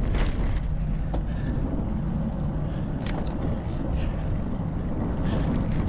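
Wind rushing over an action camera's microphone and road-bike tyres rolling on asphalt: a steady low rumble while riding, with a sharp tick about three seconds in.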